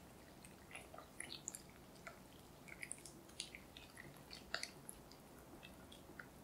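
Wire whisk stirring thick cocoa crepe batter in a glass bowl as milk is worked in: faint, irregular wet squishing with small light clicks.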